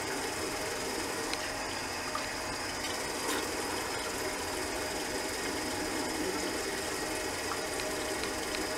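Bathroom sink faucet left running, a steady even rush of water, with a few faint clicks.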